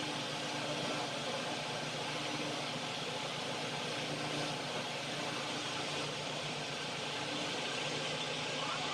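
Steady background hiss with a faint low hum, as from a running machine or room fan.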